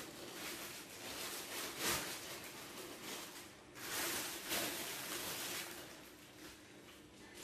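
Clear plastic packaging wrap crinkling and rustling in irregular surges as a soundbar in its plastic sleeve is handled, loudest about halfway through, with a sharp click about two seconds in.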